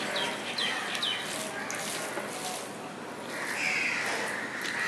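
Fingers mixing rice on a steel plate and wet chewing: small clicks and mouth sounds. Birds call in the background, with three short high falling chirps in the first second and a crow's caw near the end.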